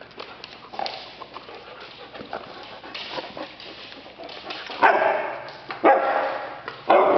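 A dog barking three times, about a second apart, in the last third, after a stretch of only faint clicks.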